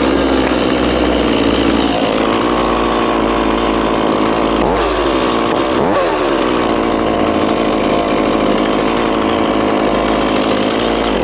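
Stihl MS180 C-BE two-stroke chainsaw starting on a single pull of its easy-start recoil cord and running steadily. Its engine pitch dips and recovers briefly twice, about five and six seconds in, and it cuts off suddenly near the end.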